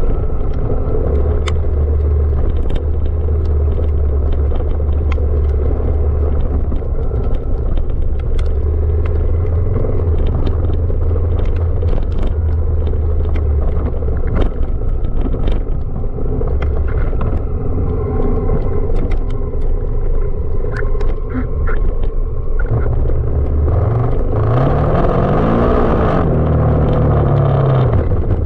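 Honda Africa Twin CRF1000 DCT's parallel-twin engine running steadily at low revs over a rough offroad track, with frequent sharp clicks and knocks from the ground under the tyres. Near the end the revs rise and then fall once.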